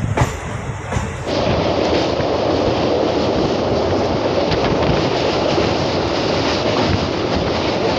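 Passenger train running on the track, then, from about a second in, the loud, steady noise of its wheels crossing a steel truss bridge, heard from the open coach doorway.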